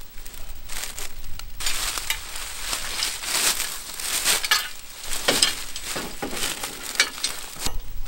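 Dry fallen leaves crunching and rustling underfoot. The crackle gets louder and steadier about one and a half seconds in and eases off just before the end.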